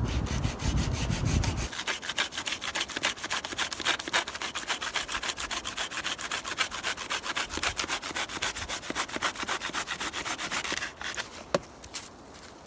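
Quick, even scraping strokes on wood, several a second, stopping about eleven seconds in. There is a low rumble for the first second or two.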